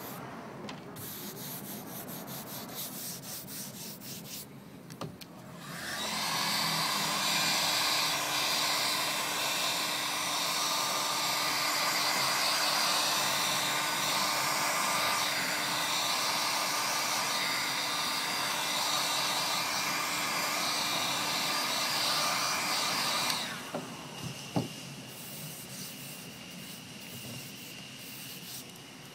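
Hand rubbing and pressing on a vinyl dashboard pad, then an electric heat gun switched on and blowing steadily for about seventeen seconds with a steady hum and high whine as it heats the vinyl to flatten an air bubble, cutting off suddenly, followed by a couple of clicks and more rubbing of the pad by hand.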